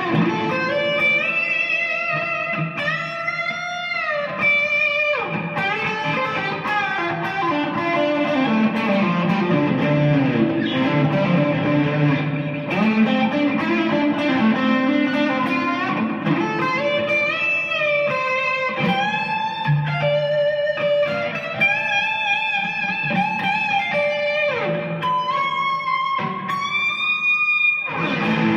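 Stratocaster-copy electric guitar, freshly overhauled, played in a sound test: lead lines of single notes bent upward and held with vibrato, with a lower sliding run in the middle.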